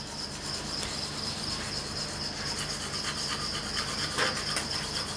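Toothbrush scrubbing teeth in quick, rhythmic strokes, over a steady high-pitched trill of crickets.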